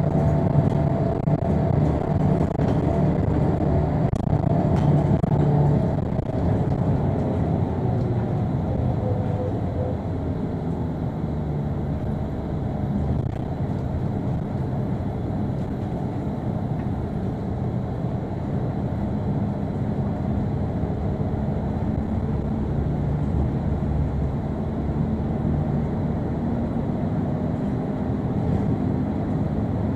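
Transjakarta bus in motion heard from inside the cabin: steady engine drone and road rumble. The engine note eases down about six seconds in, then climbs slowly again near the end as the bus picks up speed.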